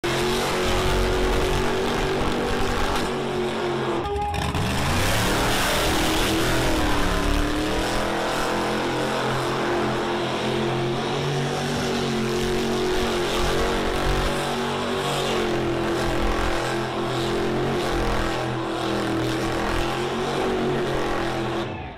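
Ford Bronco's engine held at high revs through an all-wheel-drive burnout. The revs drop sharply about four seconds in, climb back, and then waver up and down.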